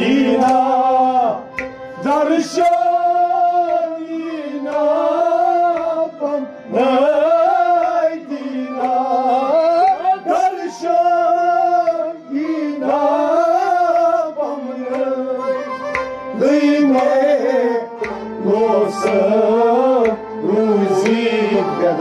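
Kashmiri Sufi song sung by a male singer, accompanied by a long-necked plucked lute and hand drums, the voice bending through phrases a second or two long with short breaks between them.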